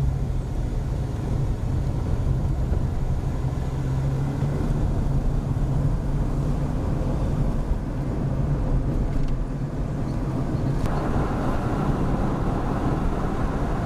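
A vehicle driving along a rough road: a steady engine hum with road and rattle noise. The road noise grows louder about eleven seconds in.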